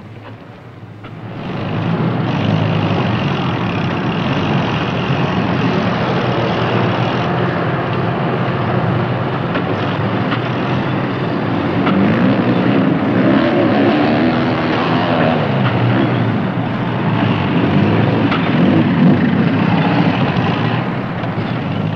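Heavy engine of a vehicle or construction machine running, fading in over the first two seconds. Its pitch rises and falls several times in the second half, as if revving under load.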